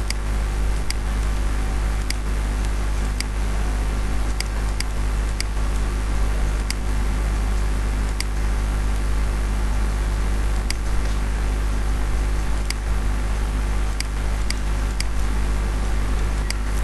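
Steady low electrical hum and hiss from the recording setup, with short, sharp mouse clicks at irregular intervals, about one a second.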